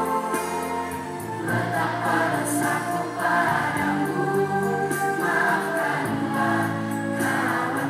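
A group of schoolchildren singing together as a choir over a musical accompaniment of sustained chords, the song moving from held note to held note.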